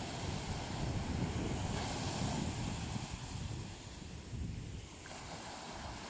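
Small ocean waves breaking and washing up the sand at the water's edge, louder in the first half and easing off after about three seconds.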